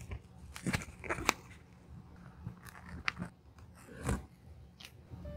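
Close-up hand-stitching sounds on a coated-canvas card holder: black thread pulled taut and knotted at the stitched edge, heard as a few short scratchy clicks and rasps.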